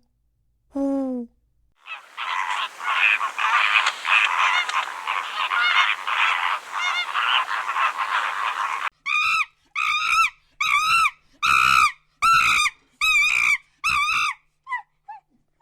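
Geese: a flock calling together in a dense, noisy chorus, then one goose honking in an even series of about eight honks. A short low animal call comes about a second in.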